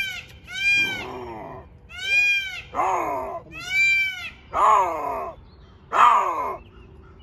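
Lynx calling over and over in a begging series of about eight calls: clear, high mewing calls that rise and fall alternate with rougher, louder yowls that slide down in pitch.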